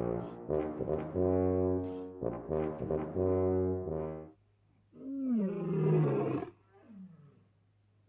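Tuba playing a short phrase of held low notes, stopping about four seconds in. About half a second later a lion roars once, rising and then falling in pitch, followed by a shorter, fainter call.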